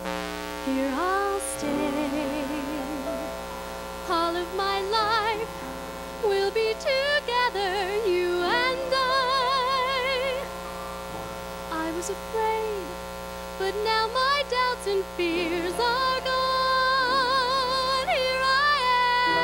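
A woman singing a slow song live into a microphone, holding long notes with wide vibrato over sustained accompaniment chords. A steady electrical mains hum from the sound system runs underneath.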